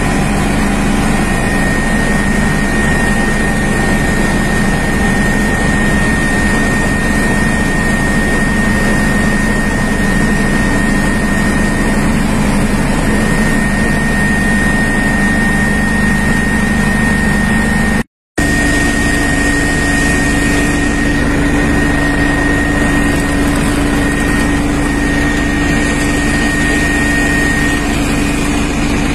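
Steady drone of an aircraft's engines heard from inside the cabin, a constant high whine over a low hum. It cuts out for an instant about 18 seconds in and resumes with the low hum pitched slightly higher.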